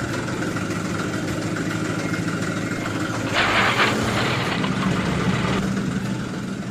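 Steady engine idling sound, a low even run. About halfway through, a rushing hiss rises over it for about two seconds.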